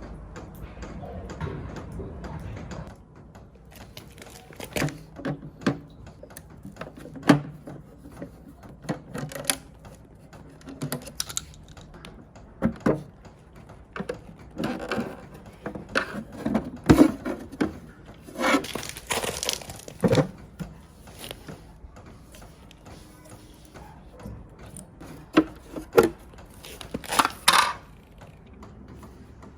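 Irregular clicks, knocks and metallic clinks of hand tools and parts being handled while an electric water heater is taken apart, with a longer rough scraping noise about two-thirds of the way through.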